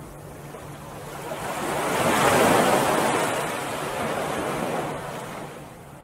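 Ocean waves breaking on a beach. One wave swells up about a second in, peaks, and washes back, and the sound fades out at the end.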